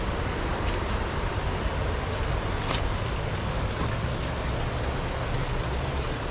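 A river rushing steadily over rocks, an even, unbroken rush with a deep low component. A couple of faint brief ticks sound about a second in and near the three-second mark.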